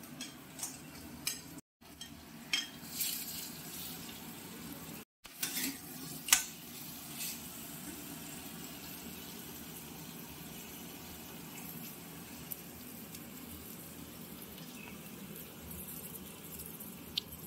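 Fried crab pieces being stirred into hot spiced masala in a pan: a steady frying sizzle, with scattered knocks and clinks of the stirring utensil against the pan in the first six seconds or so.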